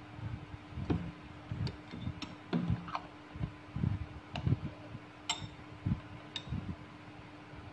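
Metal spoon clinking against a small glass bowl of pumpkin dessert: about eight separate light clinks, spread unevenly, among soft low knocks from the bowl and spoon being handled.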